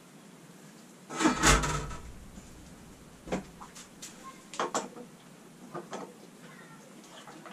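Handling noise at a stainless steel brewing kettle: a loud clatter with a low thud about a second in, then a few sharp clicks and taps as a part is fitted to the kettle's drain tap.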